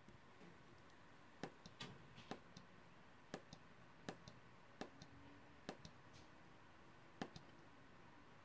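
A series of about eight small sharp button clicks, spaced irregularly about a second apart, over a quiet background.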